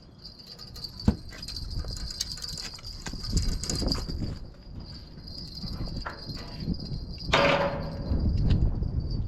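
Insects chirring in a steady high trill, over a low, gusting rumble of wind on the microphone. A sharp click comes about a second in, and a short louder burst of noise about seven seconds in.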